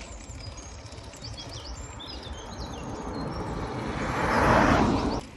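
A car approaching and passing close by, its tyre and engine noise swelling to a peak about four and a half seconds in and then cutting off suddenly. Birds chirp a couple of seconds in, over the low rumble of the bicycle rolling.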